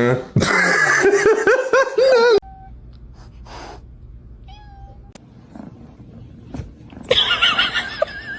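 Cat meowing loudly in a run of wavering meows for about two seconds, then a quieter pause, then another loud bout of meowing starting about seven seconds in.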